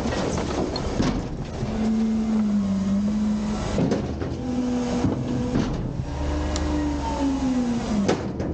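Autocar/Heil front-loader garbage truck's engine revving to drive the lift-arm hydraulics while a front-load container is held tipped over the hopper; its pitch rises and falls. Scattered knocks and clatter of trash and metal sound over it as the container is emptied.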